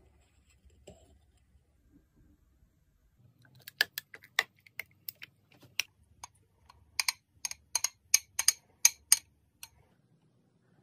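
A quick, irregular run of sharp clicks and taps, starting about three and a half seconds in and stopping shortly before the end.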